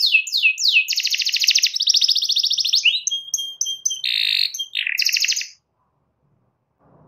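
Domestic canary singing: a series of quick falling whistled sweeps, then a fast rolling trill, a few varied notes and a harsh buzzy phrase, ending in another short trill. The song stops about five and a half seconds in.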